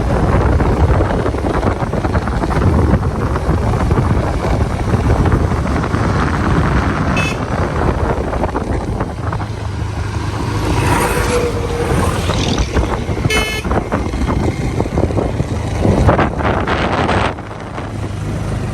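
Road vehicle driving, a steady engine and road rumble, with two brief horn toots, about seven and thirteen seconds in.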